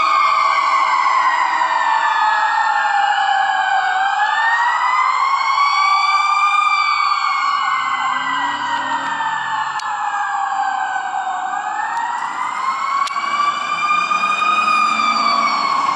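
Emergency vehicle siren on a wail setting, sliding slowly down and back up about every seven seconds, then cutting off suddenly at the end.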